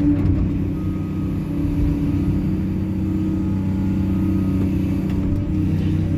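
Excavator's diesel engine running steadily, with a faint higher whine coming and going.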